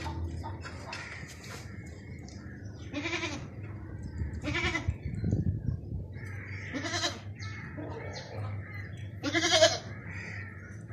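Goat bleating four times, short wavering calls a second or two apart, the last one the loudest.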